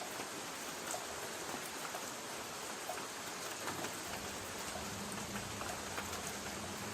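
Light rain on a tin roof: a steady hiss with scattered single drops ticking on the metal. A faint low hum comes in about four seconds in.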